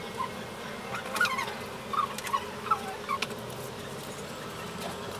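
Short chirping calls from birds, about eight of them scattered over the first few seconds, some falling in pitch. A single sharp knock comes at the very end.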